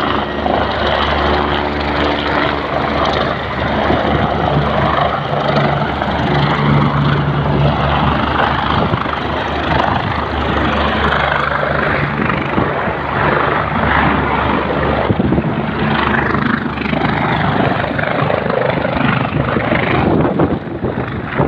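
Helicopter coming in to land close by, its rotors and engine running loud: a steady low drone of stacked tones under a dense rush of rotor noise.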